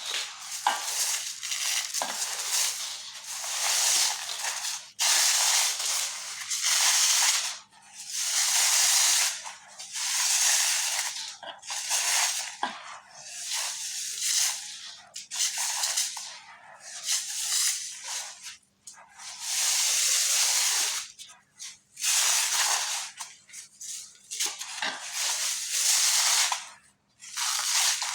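Glittery cement chunks being crumbled, a crunching, gritty crackle in about a dozen separate bursts of a second or two each, with short pauses between.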